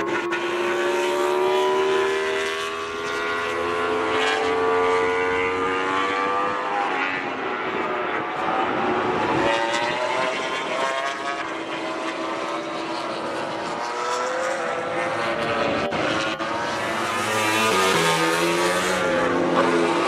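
MotoGP race bike engines, including a Yamaha YZR-M1, running hard on track: the engine pitch climbs steadily over the first few seconds as a bike accelerates, then rises and falls as bikes go by. Near the end the pitch changes in quick steps.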